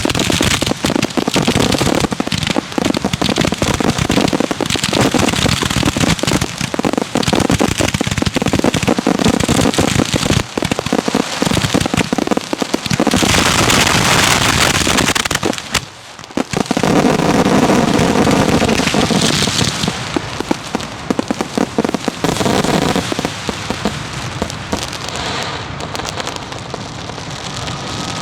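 Fireworks grand finale heard from the launch site: a dense, continuous barrage of shells firing and bursting, with heavy crackling. There is a brief lull about halfway through, then the barrage resumes and eases slightly toward the end.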